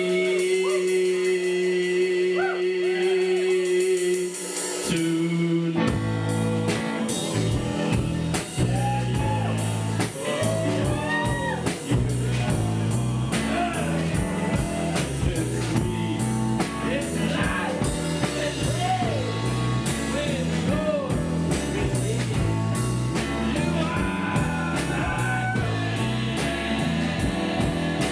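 Rock song with a lead vocal: held chords for the first few seconds, then the full band with drum kit, bass and guitar comes in about five seconds in under the singing.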